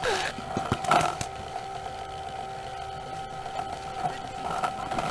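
Handling noise of a paintball marker carried with a barrel-mounted camera: a few knocks and rubs in the first second and a half over a steady faint hum.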